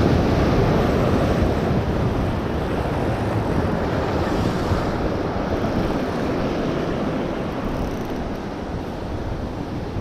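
Ocean waves breaking and washing over jetty boulders, a loud, steady rush. Wind buffets the microphone throughout. The surge is strongest at the start and slowly eases off.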